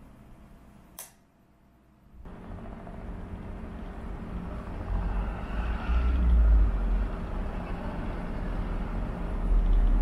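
A click about a second in, then a brief near-silence. After that a small electric fan with cicada-wing blades runs with a faint steady hum under a low outdoor rumble, which swells in the middle and again near the end.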